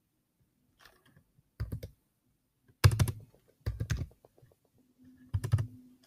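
Computer keyboard keys typed in short bursts of a few quick keystrokes each, about four bursts, as letters are typed and backspaced.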